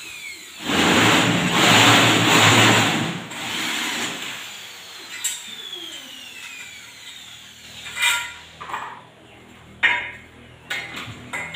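Handheld electric drill running into an aluminium frame bar in one loud burst of about two and a half seconds near the start, followed by scattered knocks and clinks of the work.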